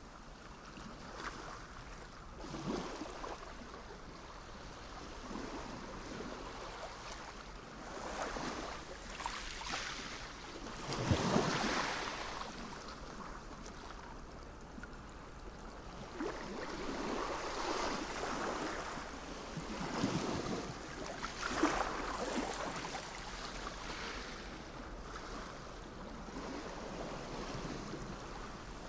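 Sea waves breaking and washing in, in irregular surges of rushing water, the biggest about eleven seconds in.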